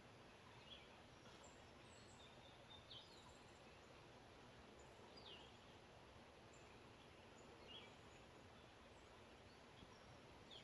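Faint bird calls: short downslurred chirps about every two seconds, with tiny high notes in between, over a quiet steady hiss.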